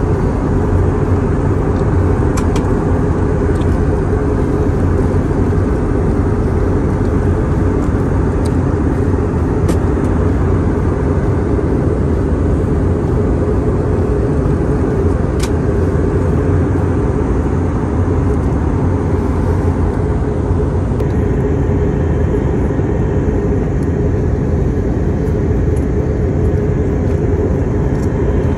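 Jet airliner cabin noise in flight: the steady, deep rumble of the engines and the airflow, heard from a window seat inside the cabin.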